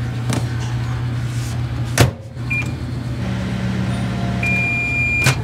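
Panasonic commercial microwave oven: the door shuts with a loud clack about two seconds in, a short keypad beep follows, then a longer beep near the end, over a steady low hum.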